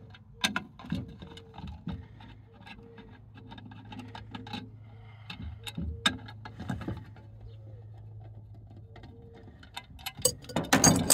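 A nut driver loosening the bolts on a cable line extender's aluminium housing: a string of light metallic ticks and clicks, then loud metal clanks and clatter near the end as the housing halves are pulled apart.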